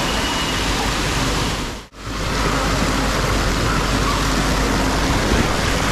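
Steady rush of splashing, churning water as a surge of water pours through a water-park pool. It cuts out for a moment about two seconds in, then carries on.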